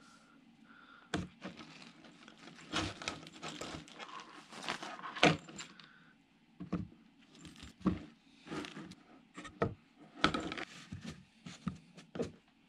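Irregular rustling and light taps as paper towel and a mesh drying net are handled while oily slices of canned pork luncheon meat are laid out and blotted.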